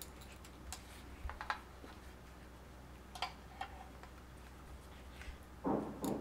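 Faint, scattered ticks and crinkles of a banana-leaf parcel being handled and tied with thread. Near the end a louder rhythmic knocking starts, a few beats a second.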